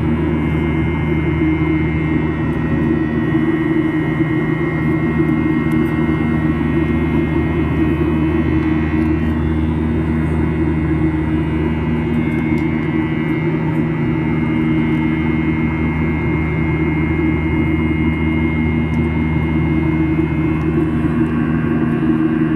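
Steady drone of an airliner's jet engines and cabin air heard from inside the cabin, with several low hums and a thin high whine.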